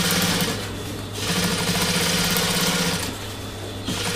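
Sewing machine stitching a seam through softshell fabric in short stop-start runs: it stops about half a second in, runs again for nearly two seconds, and starts once more near the end. Its motor keeps a steady low hum in the pauses.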